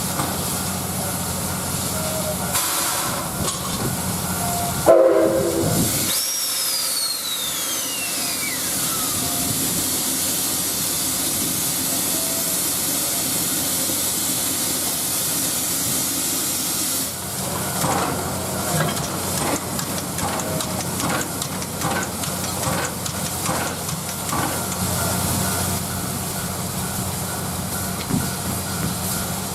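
Steam locomotive C57 180 hissing steam steadily, with one short blast of its steam whistle about five seconds in. The hiss stops at about seventeen seconds, leaving a run of irregular knocks.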